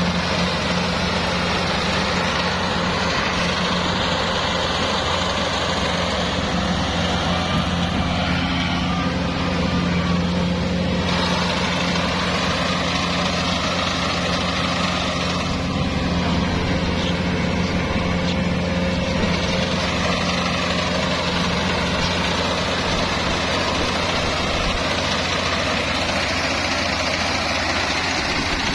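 Combine harvester running steadily while harvesting rice: a constant engine hum under a dense mechanical clatter of the working machinery, the higher noise shifting in character about eleven seconds in.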